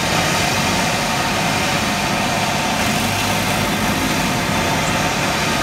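Loud, steady engine noise from airport ground vehicles, including a baggage tug towing a cargo container past.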